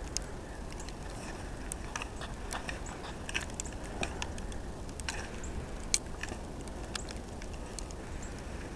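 Snow crunching: scattered, irregular small crackles and ticks over a low steady rumble.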